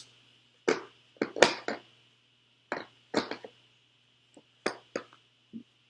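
Metal open-end wrenches clinking and knocking against each other as they are handled, about ten short, sharp clicks at uneven intervals.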